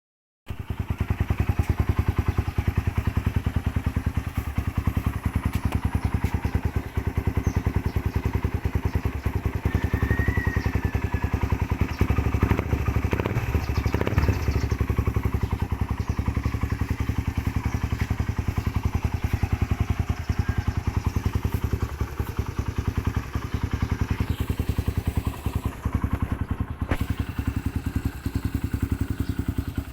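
Suzuki Raider 150 single-cylinder four-stroke engine running through an aftermarket Apido exhaust, idling with an even, rapid exhaust pulse and a brief slight rise about halfway through.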